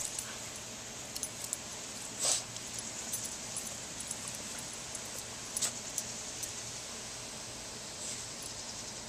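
Steady hiss of water spraying from a garden hose sprinkler nozzle, with a few short sounds from a Boston Terrier snapping at the spray. The loudest is a brief burst about two seconds in.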